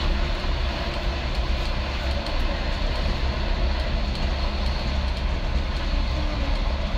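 Steady rumble and hiss of a passenger train running, heard from inside the carriage.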